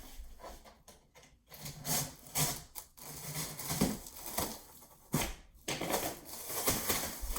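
Packaging being handled and pulled off a new engine: irregular rustling, scraping and sharp clicks of cardboard and plastic wrap, with a few louder knocks.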